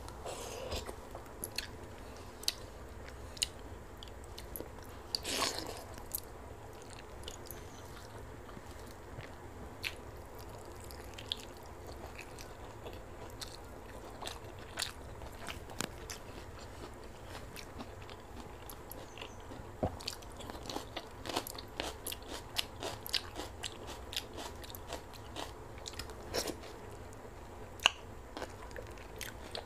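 A woman chewing and biting food eaten by hand (pakhala, fermented rice in water, with raw onion, green chilli and fried okra), with irregular crisp crunches and mouth clicks that come more often in the second half.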